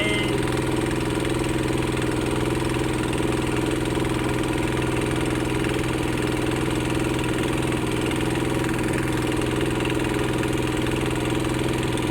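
Engine idling steadily at an even, unchanging speed.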